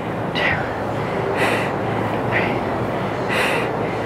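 A woman breathing hard in short, sharp breaths about once a second while doing banded squats. Underneath runs a steady rushing noise with a low hum.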